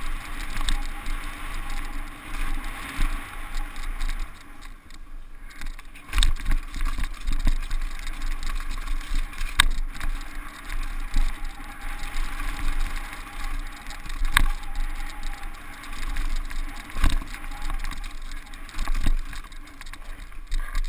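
Mountain bike ridden fast down a dirt forest trail, heard from a helmet camera: a steady rush of wind and tyre noise with a low rumble, and several sharp knocks from the bike hitting bumps.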